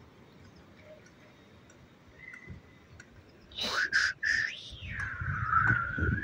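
A high whistling sound: after a quiet start, quick glides up and down about three and a half seconds in, then one long wavering whistled note near the end.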